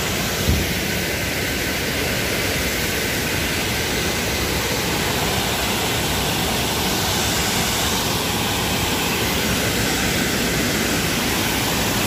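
Rushing water of a small waterfall, a steady even hiss with no breaks. A brief thump about half a second in.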